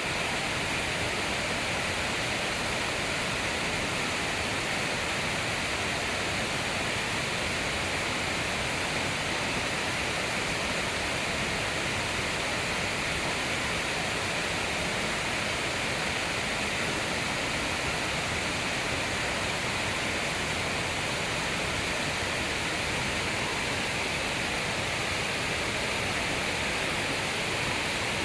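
Waterfall heard from close by: a steady, unbroken rush of falling water.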